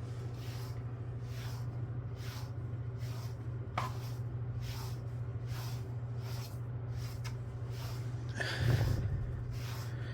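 Pet brush being drawn through a cat's fur to pull out loose hair, repeated rasping strokes about once a second over a steady low hum, with one louder bump near the end.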